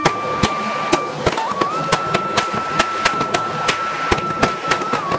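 Fireworks crackling: an irregular string of sharp pops, about four a second, from a firework throwing out showers of sparks.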